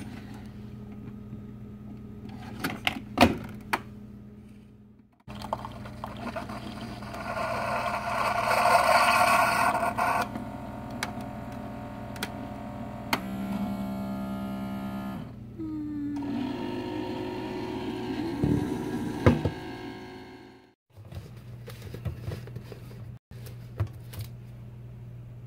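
Single-serve pod coffee maker brewing: a steady machine hum under a loud stretch of hissing and gurgling as coffee dispenses into a tumbler, with a few clicks and knocks along the way. The sound drops out briefly a few times.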